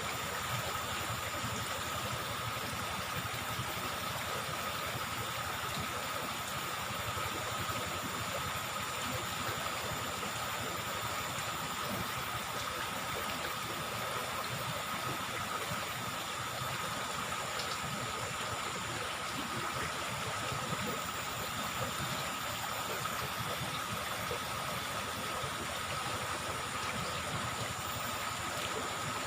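Flowing river water, a steady rushing noise, with a steady high-pitched tone running through it.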